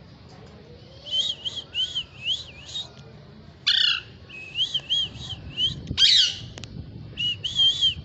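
Pet parakeets calling: runs of short, arched chirps start about a second in, broken by two louder, harsh screeches at about four and six seconds.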